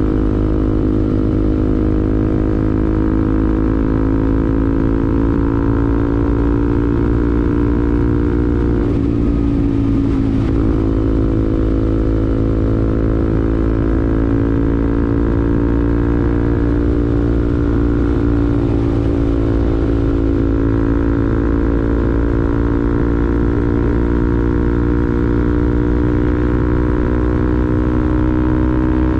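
Bajaj Pulsar NS200's single-cylinder engine through an R9 aftermarket racing exhaust, running at steady revs as the bike is ridden, with a bassy note. Its pitch dips briefly about ten seconds in and climbs slowly near the end.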